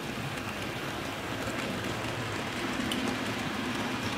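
Model railway freight train running past at speed: a steady rattle of the wagons' wheels rolling over the track, getting a little louder about halfway through.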